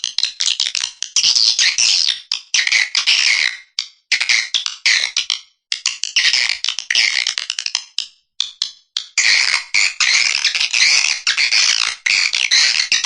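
Swiftlet lure call track: high-pitched rapid chattering twitters and clicking trills, repeated in phrases with a few brief pauses. It is the 'suara panggil' played from swiftlet houses to draw in a colony of swiftlets.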